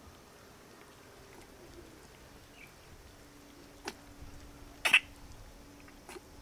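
Young puppies being bottle-fed milk: mostly quiet suckling, with a faint click about four seconds in and one short, high squeak about five seconds in.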